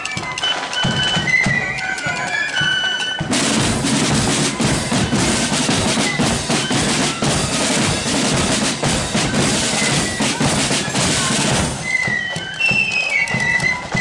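A marching flute band of flutes, snare drums and bass drum plays. About three seconds in the flute melody gives way to a loud passage of rolling snare drums for about eight seconds, and the flutes come back in near the end.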